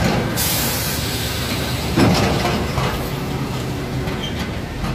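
Hino Ranger diesel truck driving off, its engine and body clattering, with a wide hiss setting in about half a second in and a sharp knock about two seconds in.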